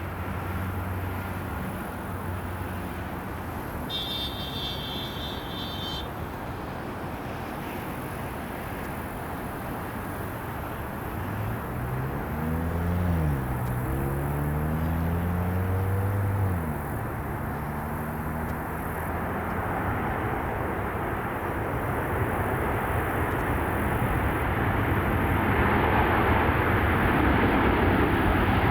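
Jet engines of a departing Airbus A330-300 (Rolls-Royce Trent 700), a wide rushing roar that swells steadily louder. Midway, a separate pitched engine hum rises and falls for a few seconds.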